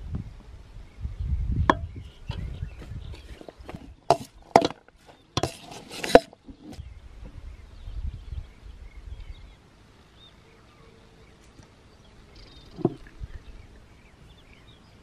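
A run of sharp chopping knocks, several close together in the first half, over a low rumble. After that it goes quieter, with faint bird chirps and one more knock near the end.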